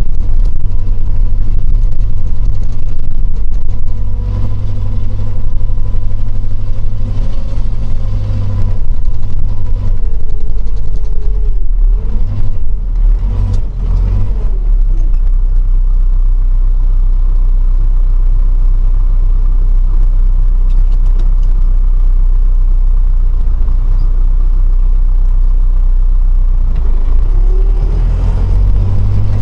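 A vehicle engine running steadily with a deep hum. The revs rise and fall a few times around the middle, then settle into an even drone.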